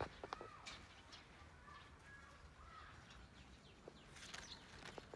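Faint outdoor background with small birds chirping now and then, and a few sharp clicks right at the start.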